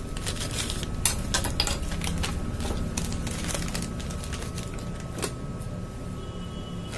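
Plastic packaging being handled as watches are taken out of a transparent bag: irregular crinkles and small clicks, over a faint steady hum.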